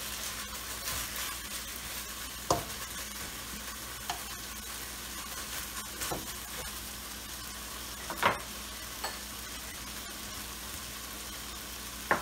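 Sliced beef flank steak sizzling steadily in a hot wok as it is stir-fried, with a spatula scraping and knocking against the pan now and then, loudest about eight seconds in.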